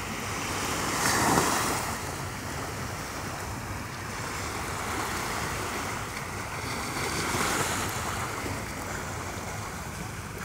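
Small waves breaking and washing up on a sandy shore, with wind on the microphone. Two waves surge louder, about a second in and again near three-quarters of the way through.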